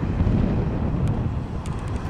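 Wind buffeting the microphone over the low rumble of a Boeing 747's jet engines as the airliner rolls out just after touchdown.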